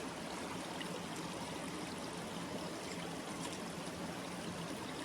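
Small desert creek's water running and trickling steadily.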